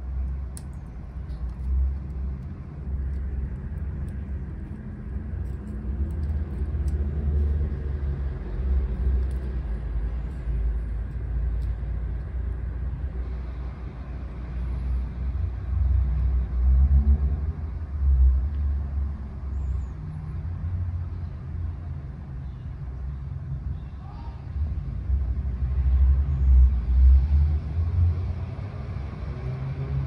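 Low rumbling noise that swells and eases in loudness, with faint higher sounds over it.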